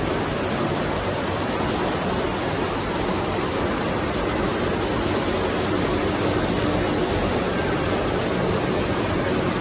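Steady machine noise of a running post-pasteurizer, cooling and drying line, a constant rush with a faint hum under it.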